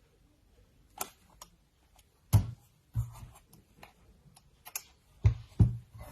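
Old mechanical alarm clocks being handled and set down on a hard surface: a handful of irregular knocks and clunks, the loudest about two and a half seconds in and a pair close together near the end.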